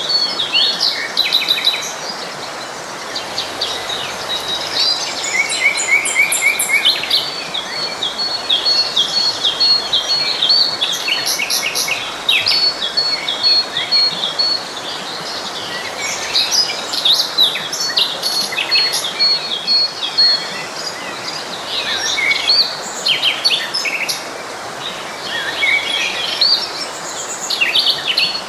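Several songbirds singing and chirping over the steady rush of a forest stream, with a high, even trill of rapidly repeated notes coming and going through it.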